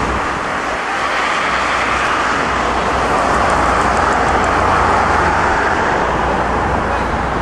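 Road traffic noise: a steady, loud wash of passing vehicles with a low rumble underneath, swelling a little through the middle.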